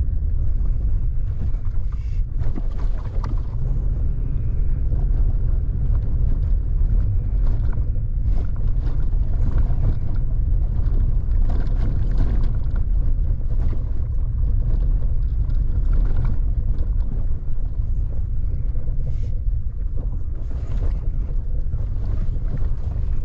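Vehicle driving along a dirt forest road: a steady low rumble of engine, tyres and wind buffeting the camera microphone, with occasional light knocks and rattles from bumps in the road.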